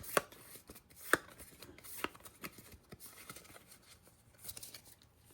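Pokémon trading cards and booster packs being handled, giving a few sharp taps and clicks about a second apart with faint rustling between them.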